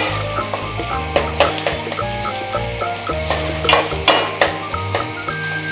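Shallots, garlic and curry leaves sizzling in hot sesame oil, being sautéed with a spatula that scrapes and clicks against the pan several times. Soft background music with held notes plays underneath.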